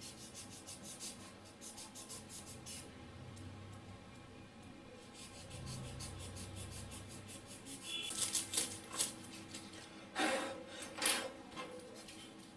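Craft knife cutting into a block of polystyrene foam (thermocol), a fast run of short scraping strokes, then a few louder crackling scrapes and knocks near the end.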